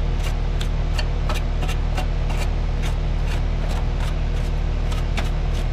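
Steady hum of a running outdoor air-conditioning condenser unit, with a sharp, regular ticking about three times a second over it.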